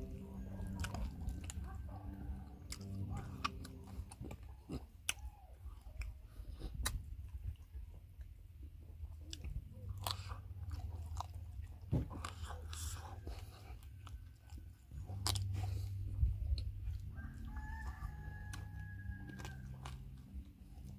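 A person chewing and biting food close to the microphone, with irregular sharp mouth clicks over a low rumble.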